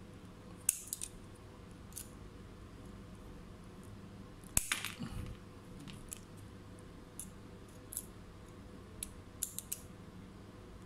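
Scattered small metal clicks and clinks of needle-nose pliers and a screwdriver working a laptop screen hinge, the loudest about four and a half seconds in.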